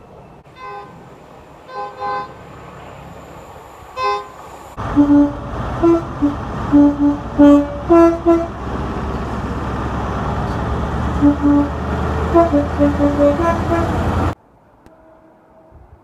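A train's two-tone horn sounds a rapid string of short toots, alternating between a low and a higher note, over the loud rumble of the train passing close by. The loud passage cuts off suddenly near the end. Before it, a few faint short horn toots come from a distant train.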